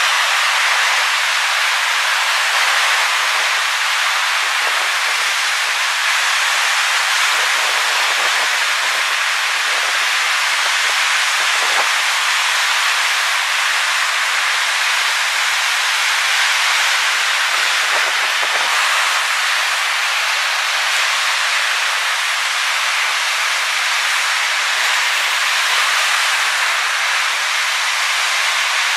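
Lake Superior waves breaking and washing onto the shore, a steady hiss of surf.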